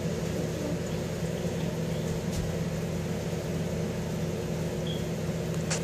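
Steady low hum of a small motor with a constant low tone, and a short click near the end.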